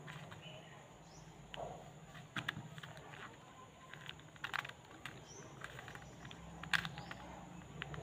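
Faint, irregular plastic clicks and clacks of a small, stiff mini 3x3 Rubik's cube as its layers are twisted by hand, with a few sharper clacks standing out.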